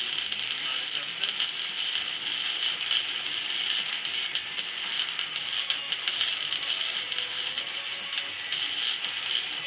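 Electric arc welding on steel: the arc crackles and hisses steadily, with a dense spray of fine pops.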